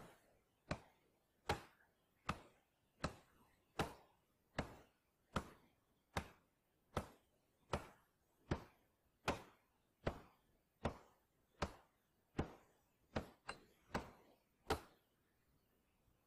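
Steady hammer blows, about one every three-quarters of a second, around twenty in all, with a quicker double stroke near the end before they stop.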